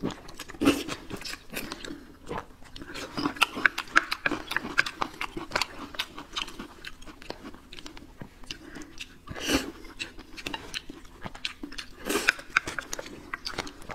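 Close-up eating sounds: a wide sesame-paste noodle sheet slurped in, then chewing with many small wet mouth smacks and crunches. There are two louder mouthfuls, about 9.5 and 12 seconds in.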